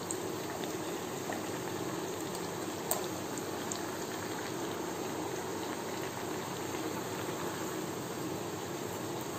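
Yeast-raised doughnuts deep-frying in hot oil: a steady sizzle with scattered faint pops, one sharper pop about three seconds in.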